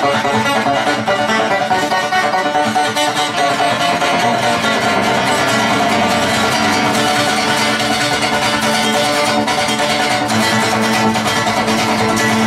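Acoustic guitar played solo, a continuous run of picked and strummed notes.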